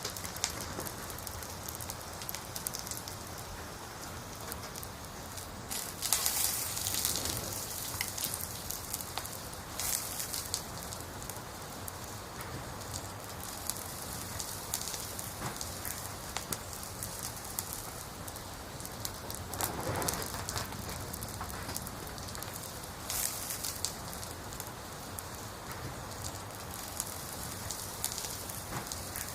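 Wood fire burning: a steady hiss full of fine crackles, with a few louder spells of popping.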